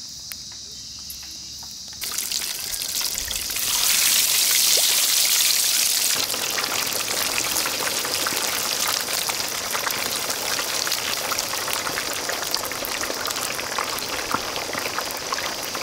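Whole country chickens deep-frying in hot sesame (gingelly) oil. A loud crackling sizzle starts about two seconds in and swells, then settles into a steady bubbling sizzle with constant small pops.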